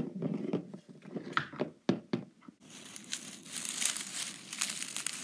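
Scattered knocks and handling noises, then from about halfway a steady crackly rustling of dry grass, leaves and pine needles brushed close to the phone's microphone.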